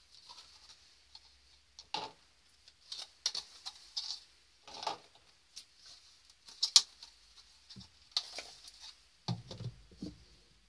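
Thin plastic cups crinkling and clicking as they are pulled apart from a stack and set into a metal mesh fryer basket, in irregular light handling sounds, with a duller knock about nine seconds in.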